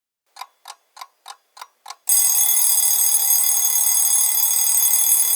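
Six clock ticks, about three a second, then about two seconds in a loud, continuous alarm-clock bell starts ringing: the alarm for the end of a three-minute countdown.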